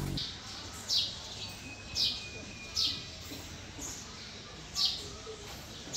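A bird chirping: short chirps that fall in pitch, about one a second.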